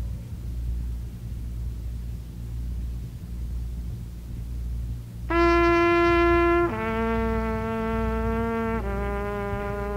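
Trumpet playing a slow ballad line live. After a few seconds with only a low steady hum, it sounds three long held notes stepping down in pitch, the first the loudest.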